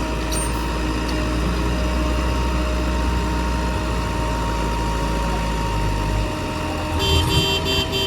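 Diesel engine of a tractor or backhoe loader running steadily, with a steady whine over the low rumble. The rumble drops about six seconds in, and near the end a rapidly pulsing high beep sounds for about a second.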